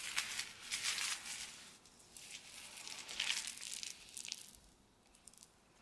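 Paint roller with wet paint rolled up and down a rough, peeling plaster wall: a hissing sound in several strokes that stop about four and a half seconds in.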